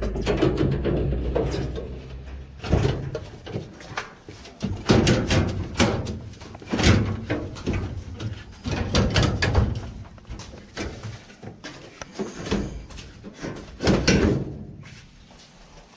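Repeated knocks, clunks and rattles of a clothes dryer's parts being handled and fitted back in place during reassembly.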